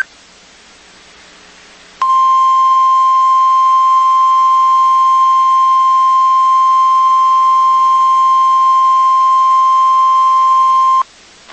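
NOAA Weather Radio 1050 Hz warning alarm tone: after a couple of seconds of faint radio hiss, one loud, steady, single-pitched beep starts abruptly about two seconds in, holds for about nine seconds and cuts off. The tone signals that a warning is about to be broadcast, here a severe thunderstorm warning.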